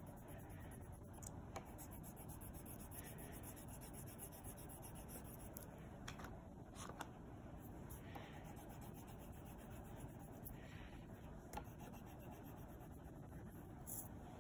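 Faint scratching of a wax crayon colouring a paper cut-out on a table, with a few light taps.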